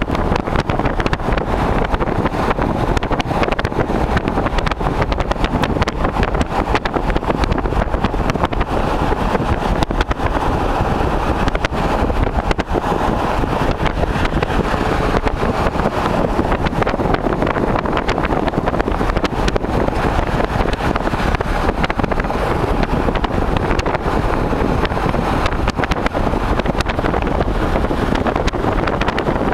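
Steady road and wind noise of a car driving on a highway, with wind buffeting the microphone.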